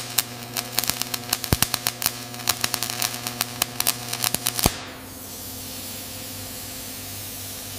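Arc welding: the arc crackles and spits in rapid, irregular pops for about the first five seconds, then gives way to a steady hiss over a low hum.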